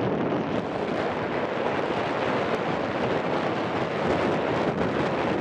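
Wind rushing over the camera microphone of a tandem paraglider in flight: a steady, even buffeting rush of air.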